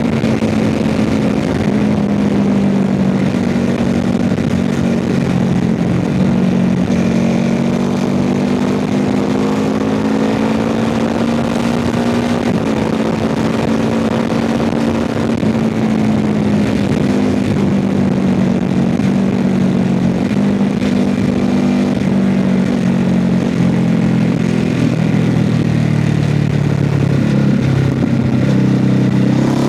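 Motorcycle with an aftermarket MIVV exhaust running under way, the engine note rising and falling gently as the throttle changes. Near the end the pitch dips, then climbs as it accelerates.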